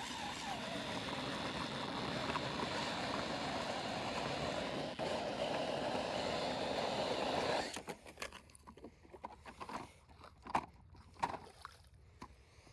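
Cordless drill spinning an ice auger as it bores a test hole through the ice, a steady whir and scrape of cutting ice. The drilling stops suddenly about two-thirds of the way through, followed by a few scattered light knocks and scrapes.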